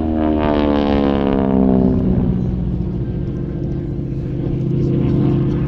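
North American T-6 Harvard's Pratt & Whitney R-1340 Wasp radial engine and propeller in a low flypast. Its drone drops in pitch over the first two seconds as the aircraft goes past, then holds steady as it draws away.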